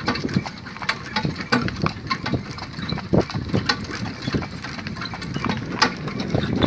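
Tinker–Lewitzer cross pony trotting in hoof boots on a gravel track, a run of hoofbeats over the low rumble of the two-wheeled gig it pulls.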